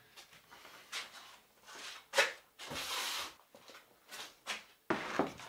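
Plastic tubs being handled, carried and set down on a worktable: a string of knocks and rustles, with the loudest knocks about two seconds in and near the end.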